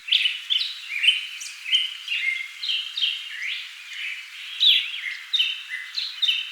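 Small birds chirping: many short, high chirps and quick pitch glides, several a second, overlapping one another.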